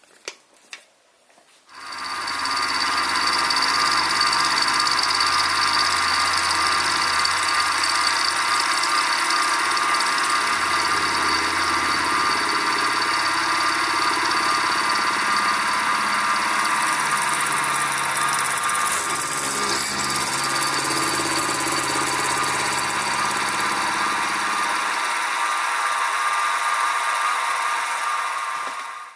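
Sieg SX2P mini mill running, its end mill cutting a brass workpiece: a steady machine whine with cutting noise. It starts about two seconds in and stops near the end.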